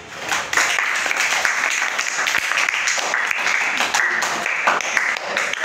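A group of children clapping, a dense run of quick claps that carries on for several seconds.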